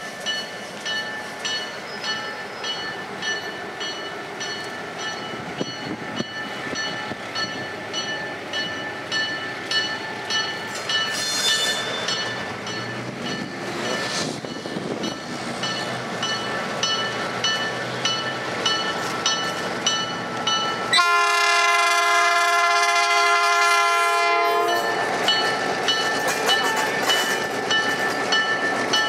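Diesel locomotive MKT 142 running as it slowly hauls a passenger train past. About two-thirds of the way in it sounds one long horn blast of nearly four seconds, a chord that is the loudest sound here.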